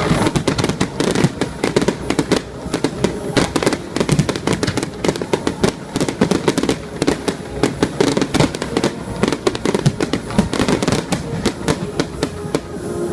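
Fireworks display going off, a dense, rapid crackle of many sharp bangs with no let-up.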